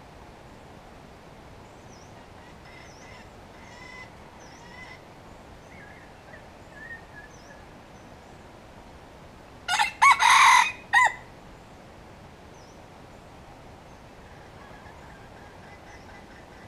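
A red junglefowl rooster (wild rooster) crows once, loudly, about ten seconds in, a short multi-part crow. Faint small-bird chirps come earlier.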